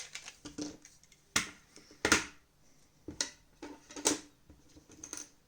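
Sharp plastic clicks and snaps of a TV remote's plastic case being pried open and its clips letting go, about five louder snaps spread over a few seconds.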